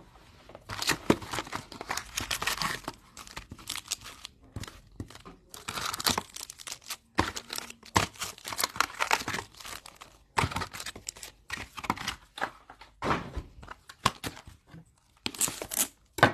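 Foil wrappers of 2022 Topps Chrome Sonic baseball card packs crinkling and tearing as the packs are handled and opened by hand. The sound comes as a string of short rustling bursts with brief pauses between them.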